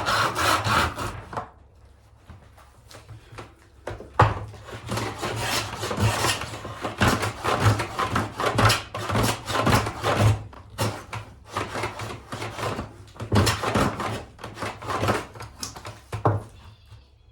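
Hand-tool strokes on a wooden board. Quick, even back-and-forth sawing stops about a second in. After a pause of a few seconds comes a long run of uneven scraping, rasping strokes with occasional knocks on the wood.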